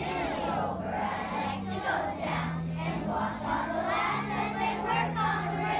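A group of young children singing together in unison over a recorded backing track, whose low notes change every second or so under the voices.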